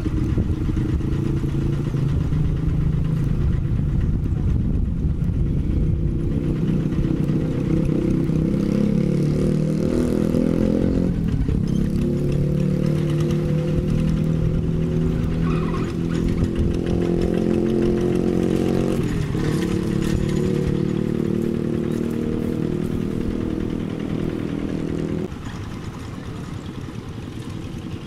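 Single-cylinder diesel engine of a Quick two-wheel hand tractor running, its pitch shifting a couple of times as the tractor is worked. About 25 seconds in it drops suddenly to a quieter, lower running.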